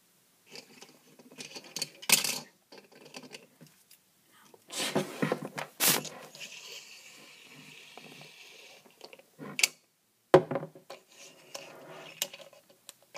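Small plastic toy figures and a bowl of glassy beads being handled and set down on a hard floor: scattered clicks and clinks, with a few sharper knocks.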